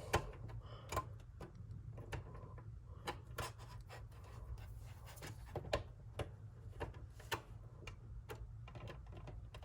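Scattered faint clicks and taps of an HDMI cable plug being handled and pushed into a monitor's port, over a steady low hum.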